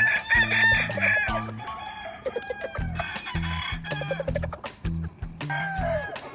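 A gamefowl rooster crows loudly at the start, a held call that falls away after about a second and a half, with another shorter crow near the end. Background music with a steady, repeating bass line plays throughout.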